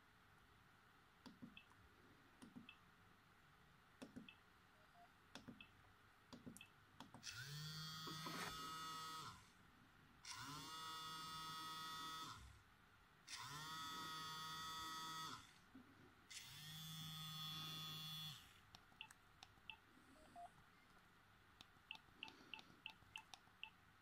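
Siemens SF65 flip phone vibrating against a desk: four buzzes of about two seconds each, roughly a second apart, each spinning up as it starts. Faint key clicks come before the buzzes and again in a quick run near the end.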